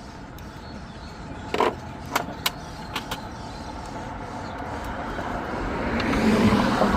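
A few sharp clicks, then a passing vehicle that swells gradually and peaks near the end.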